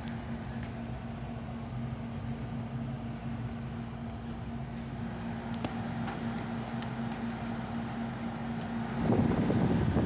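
Kelvinator Comfort Series window air conditioner running with a steady hum and fan rush. About nine seconds in, a louder rushing noise starts.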